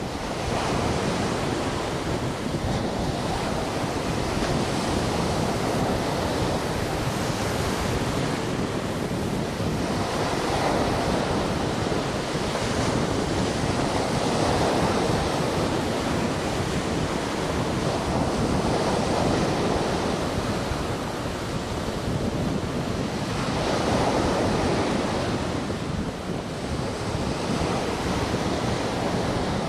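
Sea waves breaking and washing on the shore in a continuous rushing surf, swelling louder every few seconds, with some wind on the microphone.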